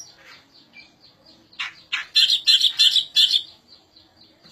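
Reed warbler (kerakbasi) singing: a quick run of loud, scratchy chattering notes in the middle, with faint, evenly repeated high ticks before and after.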